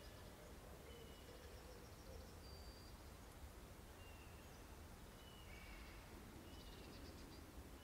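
Faint outdoor ambience: distant birds giving short, thin, high chirps every second or so over a low steady hum.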